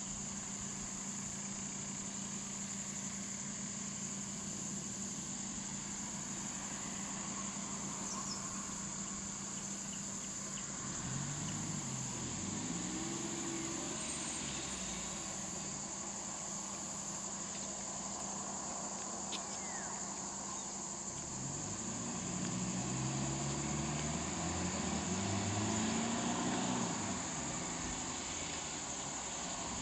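Steady high-pitched insect chorus over the low hum of idling van engines. Twice the engine pitch rises and falls as the vans pull forward, the second time louder.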